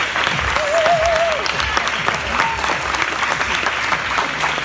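Audience applauding, a dense patter of many hands clapping at the close of a dance routine, with one short wavering whoop about a second in.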